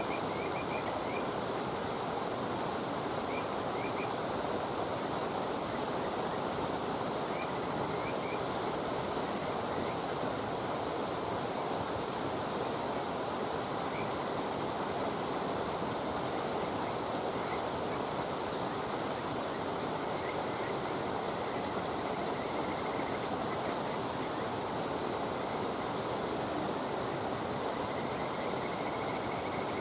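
A steady rushing noise, with an insect giving a short high chirp about every second and a half and a few faint trills. No distinct crackle or pop from the fire stands out.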